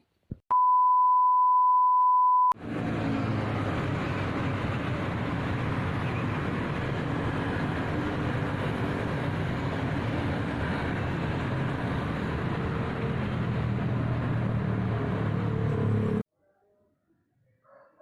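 A steady high beep lasting about two seconds, then an abrupt cut to a loud, continuous dense noise with a low hum in it, which stops suddenly near the end.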